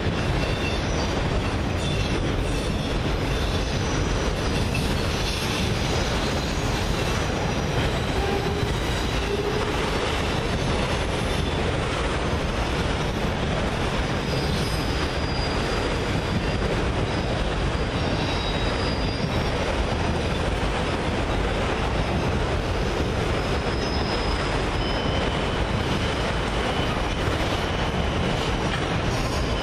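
Freight train of autorack cars rolling past on steel rails: a steady rumble of wheels with faint high wheel squeals coming and going.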